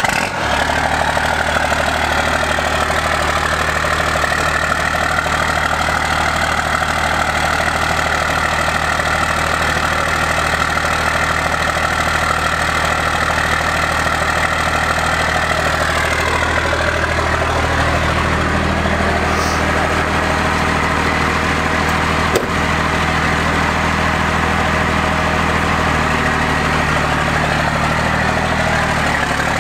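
First-generation Dodge Ram's 12-valve Cummins inline-six turbodiesel idling steadily just after starting, with a whine above the engine note in the first half. The low exhaust note grows louder past the middle, and a single sharp tick sounds about two-thirds of the way through.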